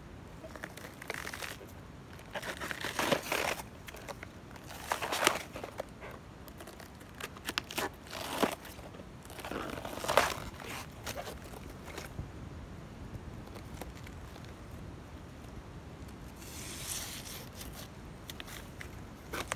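Layered outer sheaths of a banana stem being peeled apart by hand: several short spells of tearing and crinkling, with pauses between them.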